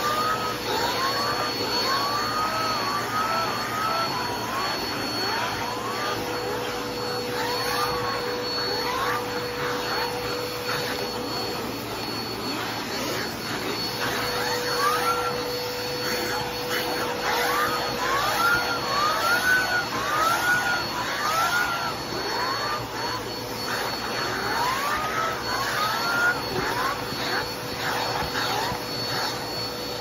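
Vacuum cleaner running steadily through a hose and clear upholstery tool, sucking crumbs and grit off microfiber sofa cushions. A steady whine sits over the motor noise, with light ticks of debris going up the hose. Clusters of short squeaks rise and fall in pitch.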